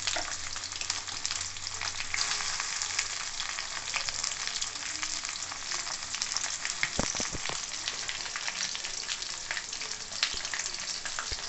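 Sliced onions and tomatoes sizzling and crackling in hot oil in a stainless steel kadai, with a few dull knocks about seven seconds in.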